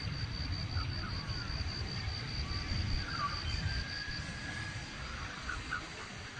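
Rural outdoor ambience: a low rumble that slowly fades, an insect's high, rapidly pulsing trill that stops about four seconds in, and a few short bird-like chirps.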